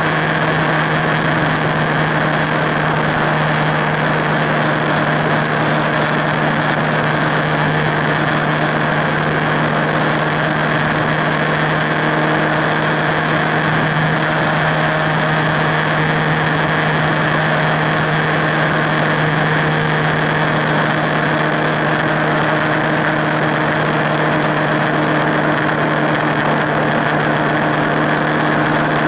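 Motorcycle engine running at a steady highway cruise, its note holding level without revving, under a constant rush of wind and road noise.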